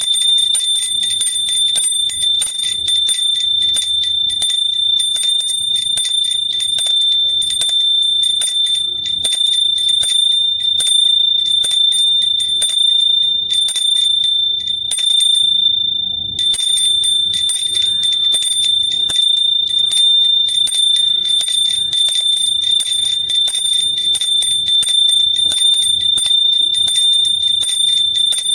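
Small metal hand bell rung rapidly and continuously, its clapper striking many times a second over one steady high ringing tone. The ringing breaks off for about a second a little past halfway, then starts again.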